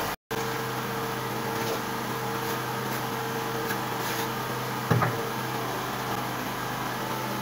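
Steady machine-like hum with faint scattered taps, and a single knock about five seconds in; the sound drops out for an instant just after the start.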